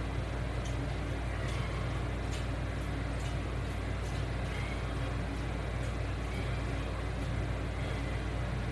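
Steady low hum with an even hiss of background noise, with a few faint light clicks scattered through it.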